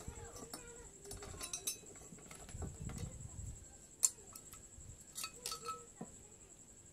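Metal clicks and clinks of car alternator parts being handled and worked with a screwdriver, with a sharp click about four seconds in and a few ringing clinks shortly after.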